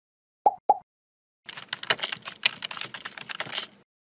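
Two short pops, then about two seconds of rapid computer-keyboard typing clicks as text is typed into a search bar.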